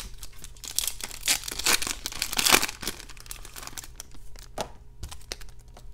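A Topps Chrome trading-card pack's crimped wrapper being torn open and crinkled, loudest about two and a half seconds in, then lighter rustles and clicks as the cards are slid out.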